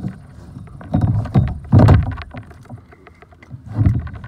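Water splashing beside a kayak as a big hooked catfish thrashes at the surface, in three bursts, the loudest about two seconds in.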